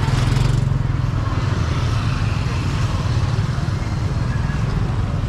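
A motor vehicle's engine running steadily, with street noise around it.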